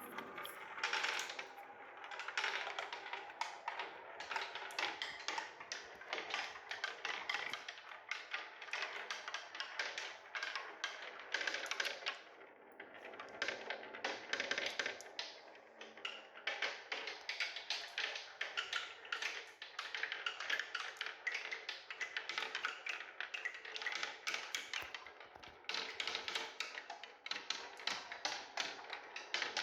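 Marbles rolling and clacking along a marble run: a dense, continuous patter of small clicks and rattles over a rolling hiss, easing briefly twice around the middle.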